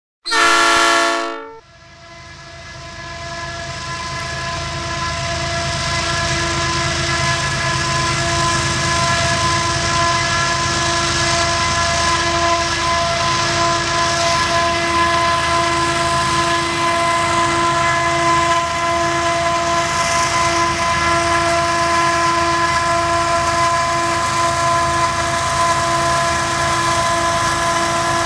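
A locomotive horn sounds one short blast at the start, then diesel freight locomotives (a GE Evolution-series unit leading an EMD SD70MAC) run with a steady rumble and a high, even whine, which the uploader hears as the SD70MAC's radiator fans screaming. The sound swells over the first few seconds, then holds steady.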